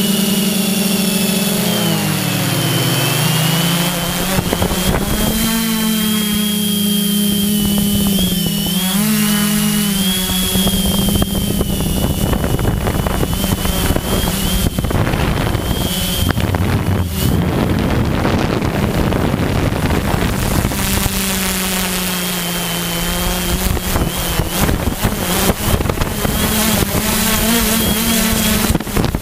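An FPV drone's motors and propellers running, heard from the on-board camera: a steady hum with a thin high whine above it. The hum dips in pitch about two seconds in and comes back up, and for a stretch in the middle it is partly covered by a rushing wind noise before it returns.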